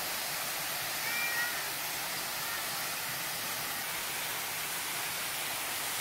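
Steady rush of a waterfall spilling over rock into a pool, with a brief faint high call about a second in.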